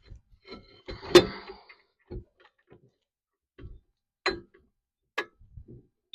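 Metal clinks and knocks from a trailer hub drum and outer wheel bearing being worked onto the axle spindle. There is one loud ringing clank about a second in, then a few softer knocks and sharp clicks.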